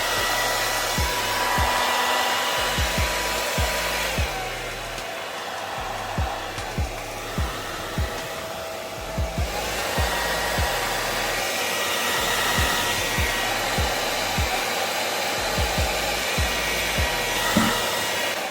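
Havells HD3171 1600 W hair dryer blowing, switched on at the start: a steady rush of air with a motor whine. The whine drops in pitch about four seconds in, rises back about halfway through, and the dryer cuts off at the end.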